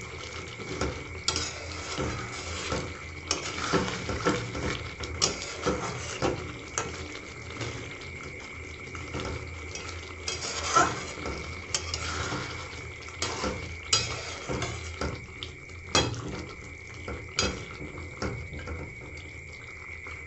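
A spatula stirring chicken curry with jackfruit seeds in a metal kadai, scraping and knocking against the pan at irregular intervals, over a faint sizzle of the frying gravy.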